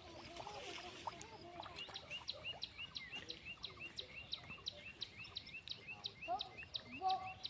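A bird calling repeatedly in short high chirps, about three or four a second, starting about a second and a half in, with some lower calls near the end.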